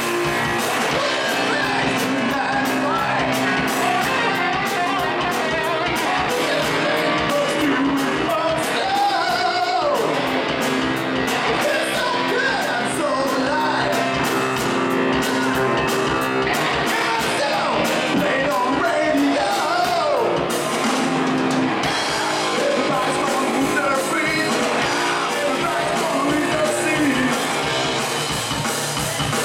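Live hard rock band playing: electric guitars, bass and drums, with a male lead vocal singing over them at a steady loud level.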